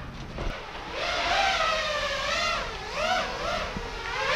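Whine of an FPV quadcopter's brushless motors and propellers, its pitch rising and falling quickly with throttle changes as the drone manoeuvres. It comes in strongly about a second in.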